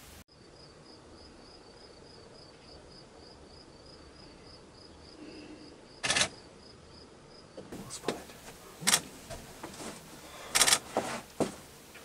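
A cricket chirping steadily, a high pulsing note about three times a second. From about six seconds in, European starlings give short, sharp calls at their nest box, the loudest about six and ten and a half seconds in.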